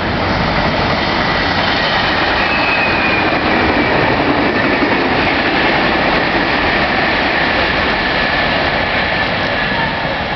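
Electric passenger train running past on the tracks, a loud steady rumble of wheels on rails with a faint high squeal held through it.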